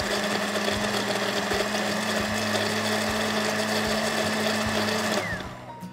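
Handheld immersion blender running steadily while submerged in a stainless steel pot, puréeing cooked blueberries into a thick soup. About five seconds in it is switched off and its motor winds down.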